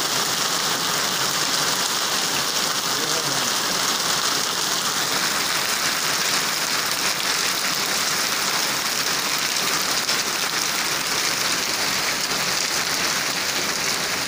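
Heavy rain mixed with hail pelting down on a wooden table and hard paved ground: a steady, dense hiss of drops and pellets.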